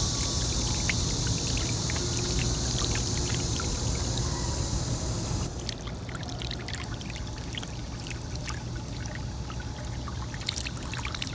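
Steady rush of running or falling water. A high hiss drops away abruptly about halfway through, leaving a quieter wash.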